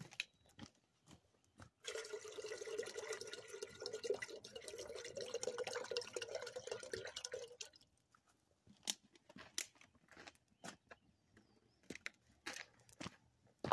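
Water pouring from a plastic bottle into a metal camp coffee pot, starting about two seconds in and lasting about six seconds. Before and after it, a wood campfire crackles with scattered sharp pops.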